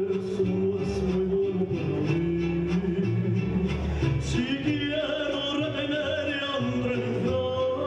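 A man singing into a microphone over guitar accompaniment, holding a long wavering note through the second half.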